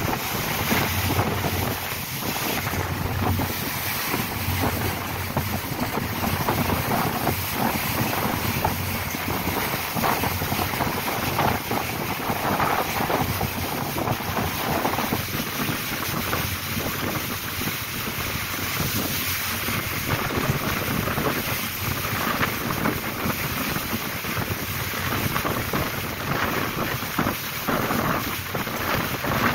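Steady wind buffeting the microphone aboard a ferry under way, over the rush of water past the hull.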